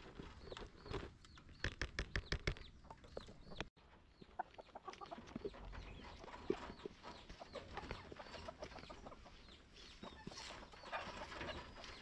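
Chickens clucking while dry poultry feed is stirred by hand with a stick in a plastic bucket. A quick run of scraping strokes comes about two seconds in.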